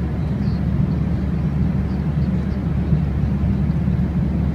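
Steady low drone of an airliner cabin in cruise flight: engine and airflow noise heard inside a Qantas Airbus A380.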